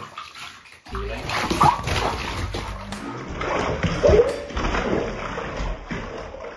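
Bathwater splashing and sloshing in a bathtub as a wet cat struggles and is rinsed, with knocks of handling. Two short cat cries come through, about one and a half and four seconds in.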